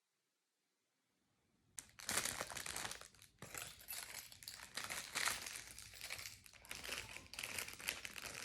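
Crinkling and rustling of something being handled, starting abruptly about two seconds in after a silent gap.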